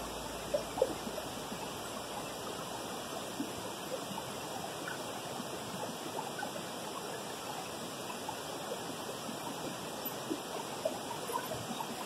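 Steady rushing of a small waterfall and its stream over rocks, with a couple of brief knocks about half a second to a second in.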